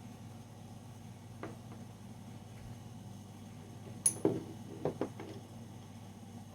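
Sharp clicks and clacks of the hard parts of a G17 replica pistol being handled: one faint click, then a quick cluster of five or so about four seconds in, over a steady low hum.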